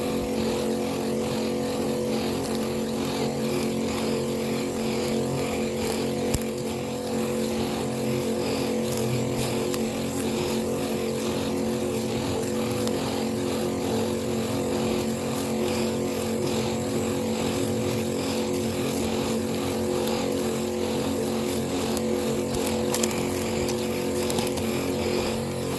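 Small engine of a backpack power sprayer running steadily at a constant speed while herbicide is being sprayed.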